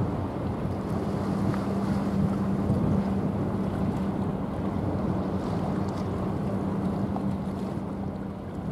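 Wind buffeting the microphone over the wash of waves, with a steady low hum from about a second in until near the end.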